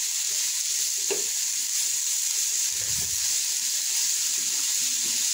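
Chicken, onion, capsicum and tomato sizzling in a non-stick pan while being stirred with a wooden spatula: a steady frying hiss.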